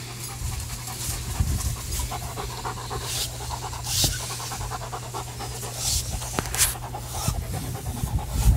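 German Shepherd dog panting rapidly and rhythmically while out of breath from running and fetching, with a few louder, sharper breaths standing out.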